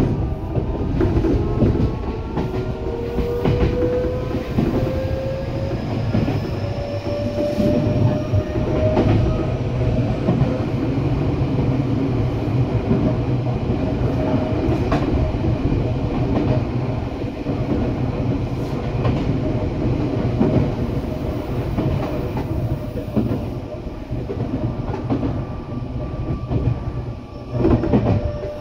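Eidan (Tokyo Metro) 8000 series electric train running, heard from inside the car: a steady rumble of wheels on rail with scattered clicks over the rail joints, and a traction motor whine that rises over the first several seconds and then holds steady.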